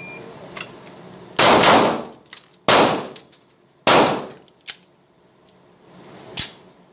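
Three pistol shots, about a second and a quarter apart, each ringing on in the indoor range, with lighter clicks between them and a smaller crack near the end.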